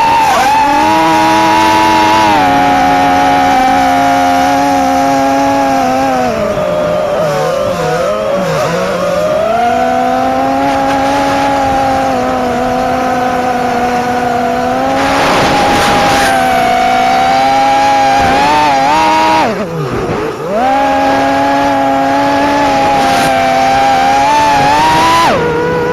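FPV racing drone's brushless motors whining under changing throttle: a steady high buzz that sags and wavers for a couple of seconds about a third of the way in, dips sharply and climbs back about three quarters of the way through.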